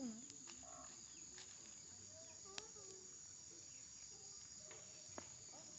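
Faint, steady trilling of crickets, with a couple of soft clicks.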